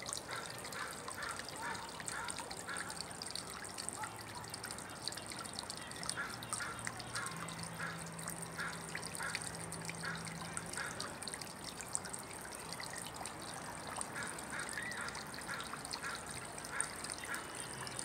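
Small garden fountain trickling steadily, with a bird calling in three runs of short, evenly spaced notes, about two or three a second.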